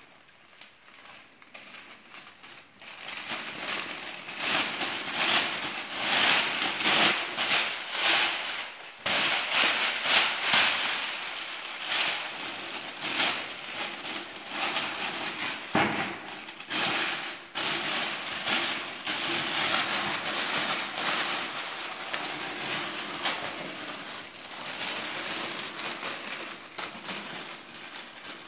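Thin plastic bag crinkling and rustling as it is handled and spread into a vacuum cleaner's dust container, soft at first and louder from a few seconds in.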